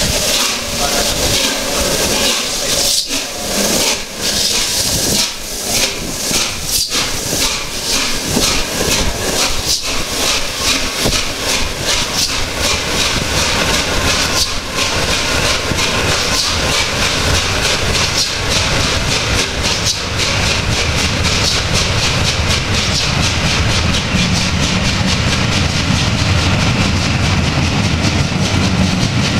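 Peppercorn A1 Pacific steam locomotive 60163 Tornado pulling away with a steady hiss of steam, its exhaust beats coming faster and faster as it gathers speed. In the later part its coaches roll past with a steady low rumble and wheel clatter.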